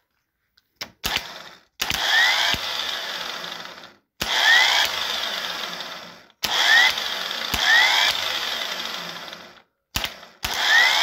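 Toyota forklift starter motor from a 1Z engine test-run on the bench from a battery through jumper clamps: a couple of sharp clicks, then four short spins, each starting with a rising whine and dying away as power is cut. It spins freely after its brushes were resoldered and its contactor cleaned, showing the repair worked.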